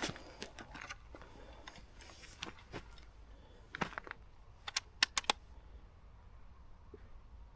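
A .22 rifle and shooting kit being handled at a new firing position: light scuffs and knocks, then a quick run of sharp clicks about four to five seconds in.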